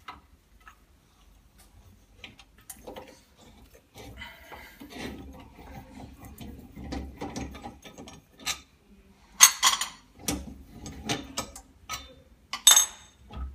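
Clicks, rattles and knocks of hands opening the autoclave bubble-removal machine and taking out the refurbished LCD, with a brief rush of noise about four seconds in and two sharper clacks near the end.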